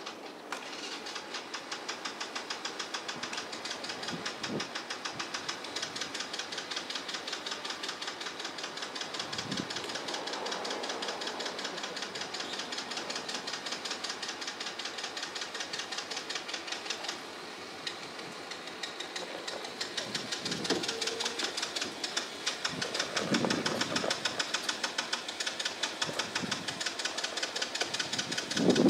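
Small ATV engine running with a fast, even pulsing beat. It falters briefly about two-thirds of the way through, then keeps going, running louder near the end.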